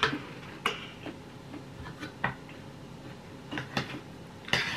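Metal fork clinking and scraping on a ceramic plate while eating: a handful of short, sharp clinks, the loudest near the end.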